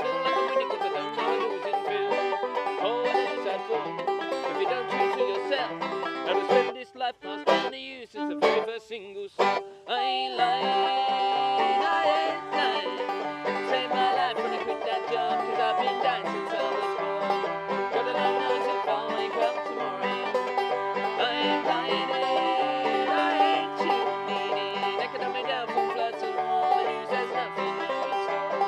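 Bluegrass band playing an instrumental break with banjo picking to the fore. About a third of the way in, the band drops to a few short stop-time hits with gaps between them, then comes back in full.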